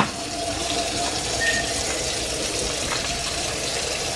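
Kitchen faucet running steadily into a sink, the stream splashing over raw chicken necks being rinsed by hand. A brief knock right at the start.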